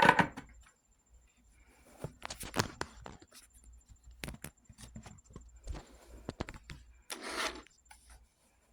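Bench handling noises: irregular scraping, rubbing and light clicks, with a longer rasping scrape about seven seconds in. They come from solder wire and tools being worked against a soldering iron tip that is not yet hot enough to melt the solder.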